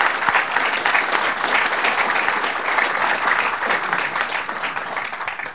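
Audience applauding: a dense, steady patter of many hands clapping, which stops suddenly near the end.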